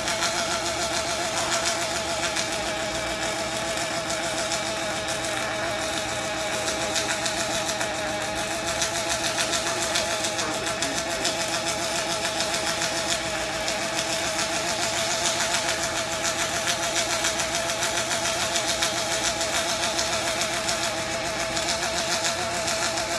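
Electric arc welding: a steady, unbroken crackle as a continuous bead is run around a steel post, with a steady wavering tone underneath.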